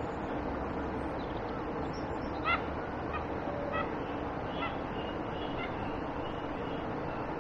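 Geese honking: a string of short calls starting about two and a half seconds in, the first the loudest, over a steady background rush.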